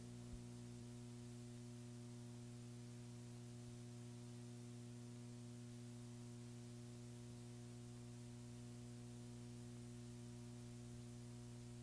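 Faint, steady electrical mains hum made of several even low tones, with light hiss, on a silent stretch of old videotape soundtrack.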